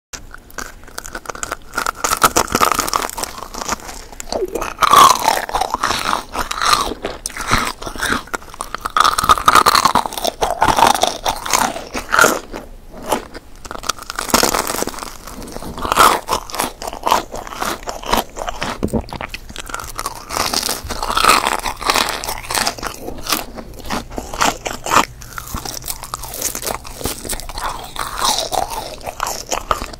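Close-miked biting and chewing of soft candies, bite after bite, full of small crackling and clicking mouth sounds that come in waves every few seconds.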